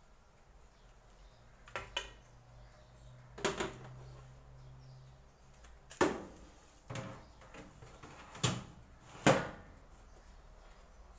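Oven door and metal baking sheet clanking as a tray of cookies is slid into the oven: a series of about seven sharp knocks and clatters, the loudest about six seconds in and again about nine seconds in.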